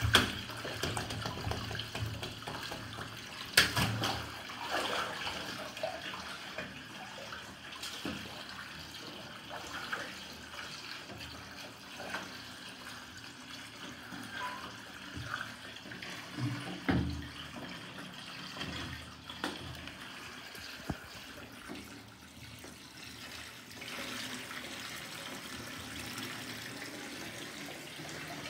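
Sneakers stepping and sloshing through shallow water in a bathtub, with sharper splashes about three and a half seconds in and again about seventeen seconds in.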